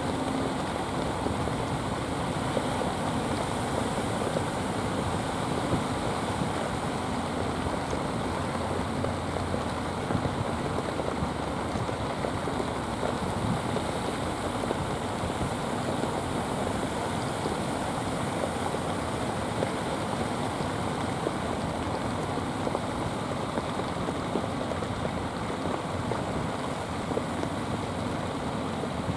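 Steady hiss of rain and sea surf, an even wash of noise with no break.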